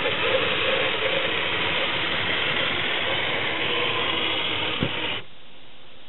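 LEGO 4.5-volt motor driving a Technic bulldozer's plastic gears and chain drive: a steady mechanical whir and rattle that starts abruptly, with a short click near the end, and cuts off about five seconds in when the power is switched off.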